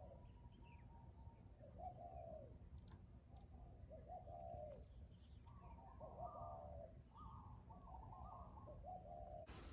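Faint dove cooing: a series of short coos, one after another, over a low steady rumble.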